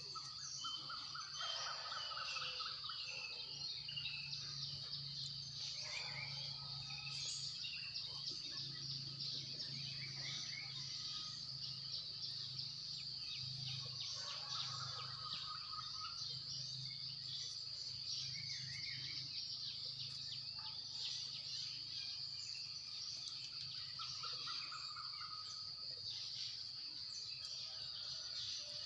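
Outdoor ambience: a steady high-pitched insect drone, with scattered bird chirps and calls over it and a faint low hum underneath.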